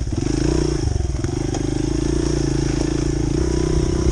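Honda CRF100F dirt bike's small air-cooled four-stroke single-cylinder engine running under throttle while riding; the note climbs about half a second in, eases near one second, then holds steady.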